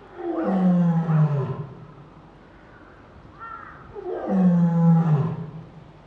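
Lioness roaring: two long, loud roars about three and a half seconds apart, each sliding down in pitch, in answer to another lion's call.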